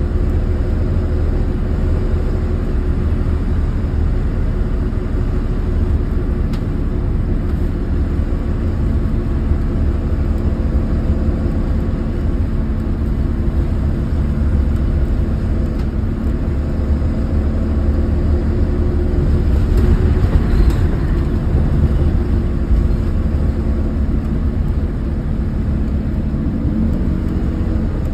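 School bus diesel engine running steadily at cruise with road rumble, heard from the driver's seat. About twenty seconds in there is a brief swell of louder rushing noise.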